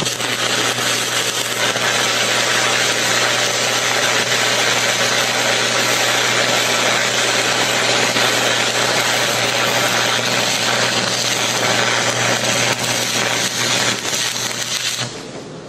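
Stick-welding arc crackling and hissing steadily as a Hobart 3/32-inch cutting and chamfering electrode is run at 160 amps on 3/8-inch steel plate; the arc breaks off suddenly about fifteen seconds in.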